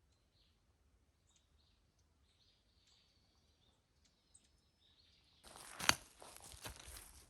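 Faint small-bird chirps, then about five and a half seconds in, loud crunching footsteps on the forest floor begin and carry on.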